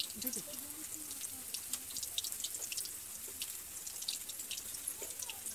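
Chicken pakoras deep-frying in hot oil in an aluminium kadai: a steady sizzle with many small crackles and pops.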